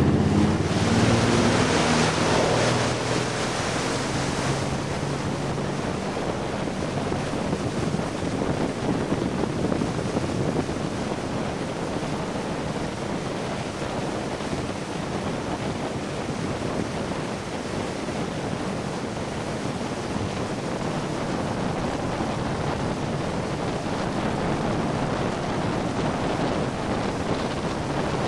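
Towing motorboat under way, with the rush of water spray and wind on the microphone. In the first few seconds the engine's pitched drone is strong and a burst of spray comes through as the barefooter is pulled up out of the water; after that a steady rush of water and wind.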